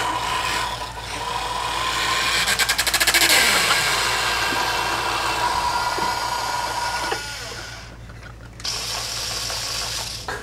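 Electric gear motors of a robotic ketchup-bottle dispenser whining as it tilts its bottle back upright, with a fast rattle about three seconds in. The whine stops about seven seconds in, and a higher hissing whir starts near the end.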